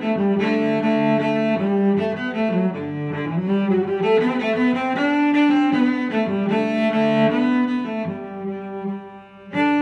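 Background music of a melody on bowed strings, briefly dropping away near the end before picking up again.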